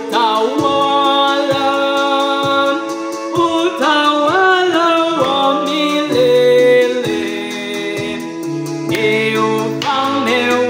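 A man singing a Swahili church hymn over accompaniment of held chords with a steady beat.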